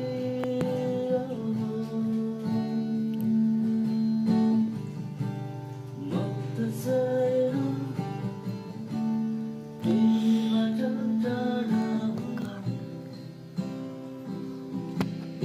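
Music led by a strummed acoustic guitar, chords struck again every second or two with notes held between them.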